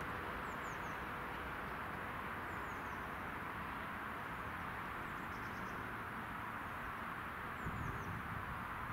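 Steady outdoor background noise with no train and no crossing bell, and faint, short, high-pitched bird chirps falling in pitch several times.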